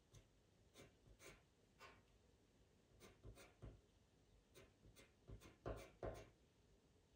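A pastel pencil scratching across pastel mat paper in short, quick strokes, laying in cat fur. There are about a dozen light strokes at an uneven pace, and the loudest two come about six seconds in.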